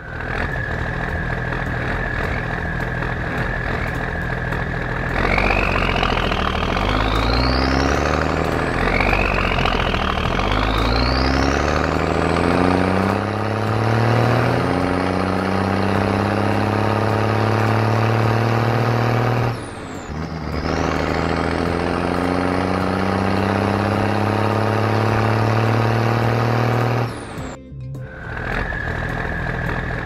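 Cartoon sound effect of a heavy vehicle engine, standing in for a bulldozer, revving up and then running steadily. A high steady whine comes first, and there are air-brake-like hisses about two-thirds of the way through and near the end.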